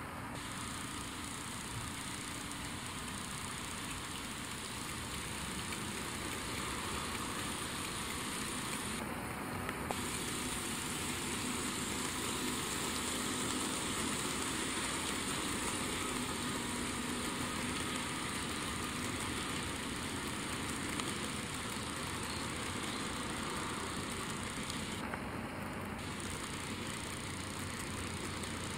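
HO scale model freight train rolling past on its track: a steady running noise of wheels and motors that grows a little louder as the string of hopper cars passes close, then eases off.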